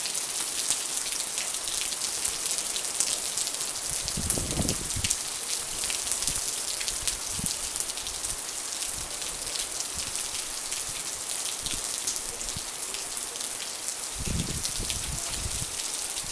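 Heavy rain pouring down steadily: a dense hiss full of sharp ticks of individual drops. Two brief low rumbles come through, about four seconds in and again near the end.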